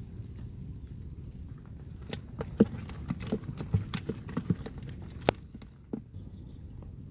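A run of irregular sharp taps and knocks for a few seconds, starting about two seconds in and loudest three times, over a steady low rumble.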